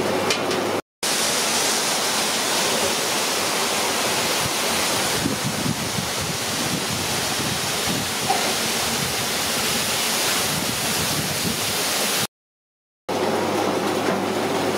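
Hot oil sizzling steadily as gram-flour pakoda batter deep-fries in a large wok. The hiss cuts off abruptly about a second in and again near the end, with a rougher, humming noise around those breaks.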